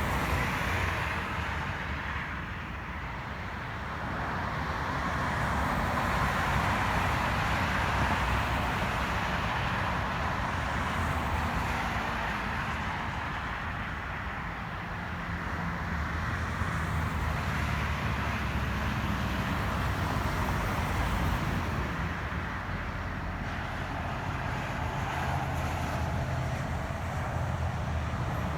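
Steady interstate highway traffic noise, a continuous hiss of tyres with a low rumble underneath, swelling and easing as groups of vehicles pass.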